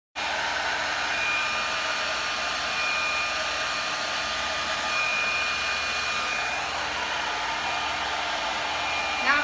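Handheld blow dryer running steadily with a faint whine, blowing across wet epoxy resin to push the pigment colours to flow together before the fast-setting resin sets up. It cuts in suddenly just after the start.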